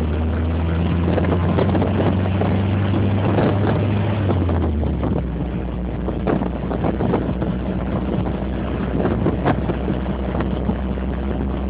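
Car driving along a country lane: the engine runs steadily under wind and road noise, with a few short knocks from the road. The low engine hum shifts pitch about four and a half seconds in.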